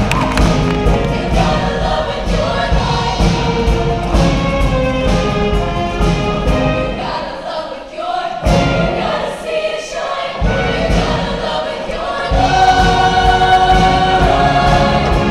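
Women's show choir singing with a live band. The bass and drums drop out briefly around the middle, then the choir builds to a long held final chord near the end that cuts off as the song finishes.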